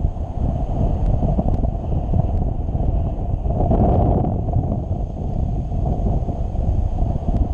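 Wind rushing and buffeting over the microphone of a camera carried in paragliding flight, a steady low rumble that swells briefly about halfway through.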